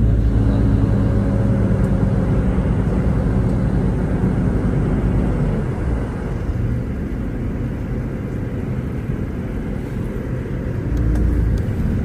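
Car running, heard from inside the cabin: a steady engine hum, giving way about halfway through to tyre and road rumble as the car drives on, with the engine note coming back near the end.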